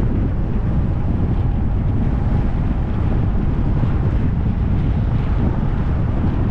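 Steady low rumble of wind buffeting the microphone, mixed with road noise from a moving car.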